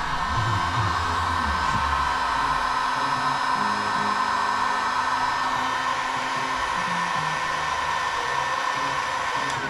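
Paint spray gun blowing compressed air in a steady, loud hiss while the panel is sprayed; the trigger is released and the hiss stops just before the end.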